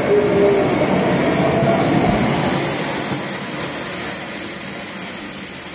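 Model gas-turbine engine of an RC turbine helicopter spooling up during its first start: a high whine that rises steadily in pitch over a loud, steady rush.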